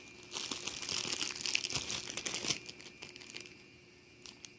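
Packaging crinkling as it is handled, a dense crackling run lasting about two seconds, then a few light ticks near the end.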